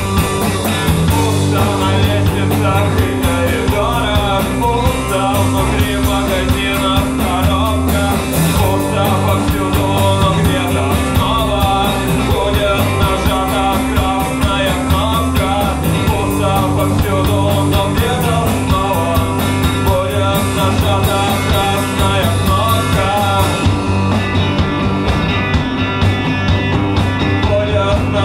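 A rock band playing live: bass, guitar and drums with a steady hi-hat ticking. Near the end the cymbal ticks drop away.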